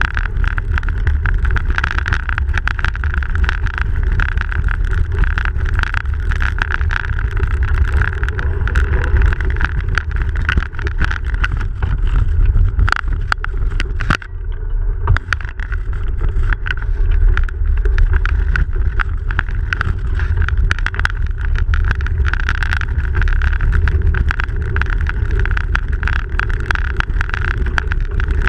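Bicycle riding over snow, heard from a bike-mounted camera: a steady low wind rumble on the microphone with frequent sharp rattling clicks from the bike jolting, and a brief dip in level a little before the middle.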